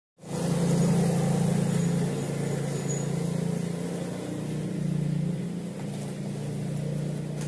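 A steady low engine hum that starts abruptly and eases slightly in level about two seconds in.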